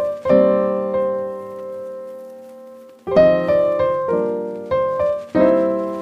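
Background piano music: chords struck and left to ring out, one held chord fading away for about three seconds before the playing picks up again.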